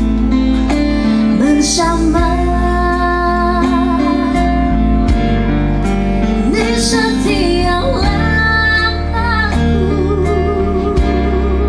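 A woman singing a melody into a microphone, holding a note with vibrato about eight seconds in, accompanied by a live band with guitar.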